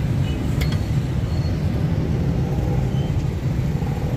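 Steady low rumble of street background noise, typical of road traffic. About half a second in comes a single light metallic clink as the steel ladle meets the steel bowl.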